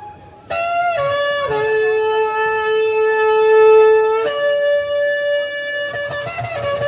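A shofar (ram's horn) is blown in a few held notes. After a short higher note it steps down to a long low note of about three seconds, then rises to a note that ends near the close.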